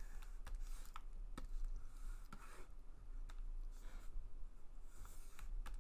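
Faint, irregular clicks of a computer mouse and keys at a desk, about a dozen over a few seconds, over a low steady hum.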